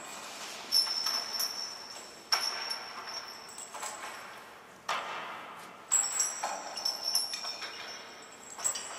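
Metal striking metal: four sharp clanks, each followed by a high ringing tone, with lighter clinks and rattles in between.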